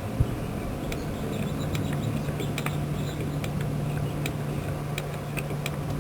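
Hand grease gun being pumped to force grease into a landing-gear jackscrew: irregular light clicks, about two or three a second, over a steady low hum.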